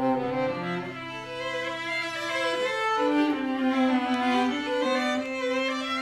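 Violin and cello playing a duet with bows: the violin moves through a melodic line over long, held lower notes.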